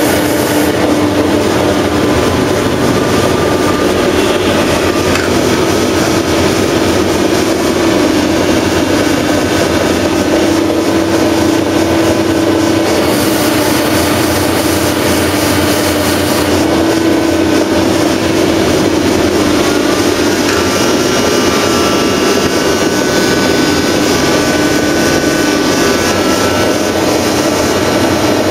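Diesel pump test bench driving a Siemens high-pressure common-rail diesel pump from a Range Rover 2.7 diesel under test at high rail pressure: a loud, steady mechanical drone with a constant hum. The pump has had its valves cleaned and been rebuilt, and the mechanic says it seems to be performing quite well.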